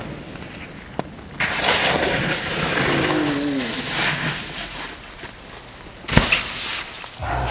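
Snowboard sliding and scraping over a snow-covered roof, with snow spraying off the edge, then one sharp, loud impact about six seconds in: the rider's hard crash landing on the packed snow below.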